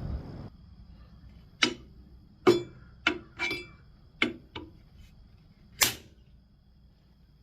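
Handle blocks and a welded steel tray being handled on a surface grinder's magnetic chuck: about seven sharp clacks and knocks, unevenly spaced, the last one the loudest.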